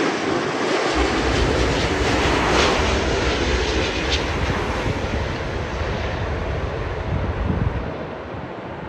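Jet engines of a Boeing 777 airliner on short final passing low overhead: a loud, steady roar with a deep rumble underneath, easing near the end as the aircraft touches down and rolls away.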